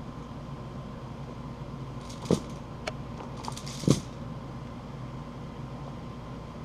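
Two sharp knocks about a second and a half apart, the second louder, with a few faint clicks between them, over a steady low hum.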